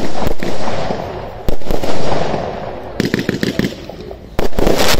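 Fab Fireworks 'Twisted Tails' firework going off: sharp bangs as shots burst at the start, about a second and a half in and again near the end, with a quick run of crackling just after three seconds.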